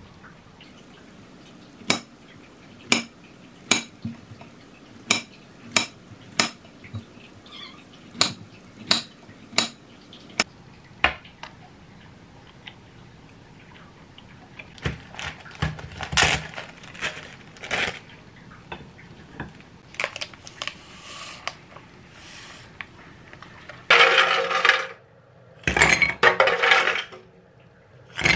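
Small knife slicing a peeled banana on a ceramic plate, the blade clicking sharply against the plate about a dozen times, roughly once a second, followed by softer clatter of handling on the plate. Near the end come loud rattling bursts of ice cubes dropping into a glass.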